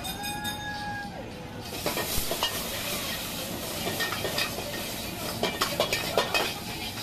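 Ingredients hitting a hot wok about two seconds in, then steady loud sizzling as rice and mixed vegetables are stir-fried over a high gas flame, with a steel ladle scraping and clanking against the wok, the clanks coming quickest near the end.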